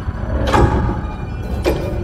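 Two slow, echoing ticks of a grandfather clock, about a second apart, over a steady low rumbling drone.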